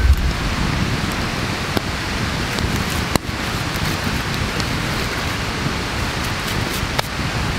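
Wood campfire burning: a steady hiss of flames with a few sharp crackles and pops, the strongest about three seconds in.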